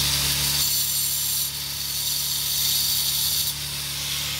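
Angle grinder cutting through a lock on a boat trailer's hitch coupler: a steady motor hum under a loud grinding hiss, the grinding changing about a second and a half in and again near the end.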